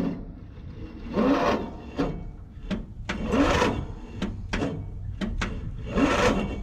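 Riding mower's electric starter cranking the engine in three short bursts, each whirring up in pitch, with sharp clicks between; the engine turns over but does not catch.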